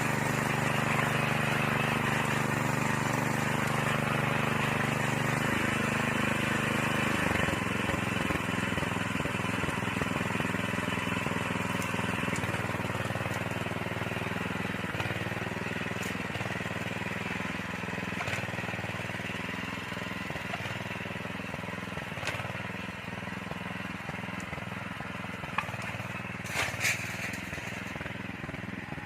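Small engine of a walk-behind motorised soil tiller running, its speed dropping about seven seconds in and then running steadily at the lower speed. A couple of short sharp clicks near the end.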